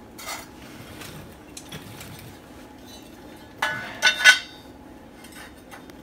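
Lengths of perforated steel angle clanking against each other and the concrete floor as they are set down and fitted together into a frame. There is a light clink just after the start, then a cluster of loud, ringing clanks a little past the middle.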